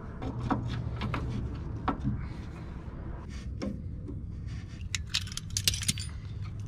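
Metal hand tools clicking and clinking during work on a small electric fuel pump and its hose, with a quick run of clicks about five seconds in.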